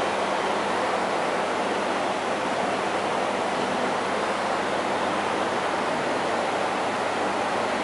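Steady rushing hiss of aquarium water and air bubbles from tank aeration and filtration, even and unbroken.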